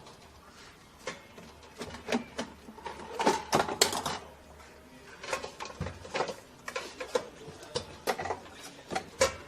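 Fan of an Electrolux EAF30 air fryer clicking and rattling irregularly, about two sharp ticks a second. The fan is catching on the mesh screen beneath the heating element, which has gone soft from overheating and sagged against it.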